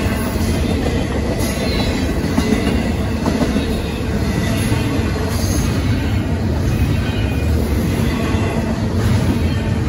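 Union Pacific intermodal freight train's double-stack well cars rolling past a grade crossing: a loud, steady rumble and clatter of steel wheels on the rails.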